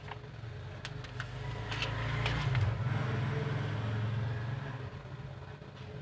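A steady low hum that swells in the middle and then eases, with a few short crinkles and rustles from a red adhesive back-paper sheet being handled in the first half.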